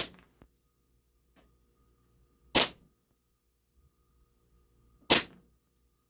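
Steyr L9-A2 CO2-powered blowback airsoft pistol firing single shots, three of them about two and a half seconds apart, each a sharp pop with a short tail.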